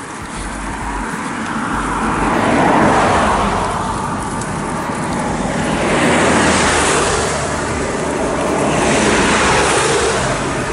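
Cars passing on the road close by, three in a row, each swelling up and fading away with tyre and engine noise.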